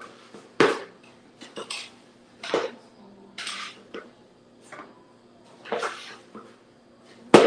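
Hands kneading pie dough in a plastic mixing bowl: irregular dull knocks as the bowl shifts and bumps on the countertop, with softer dough sounds between them. One sharp, louder knock comes near the end.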